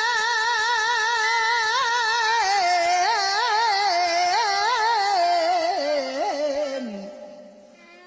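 Music: a solo voice holds a long note with vibrato, then slides down through an ornamented, wavering melody and fades out about seven seconds in.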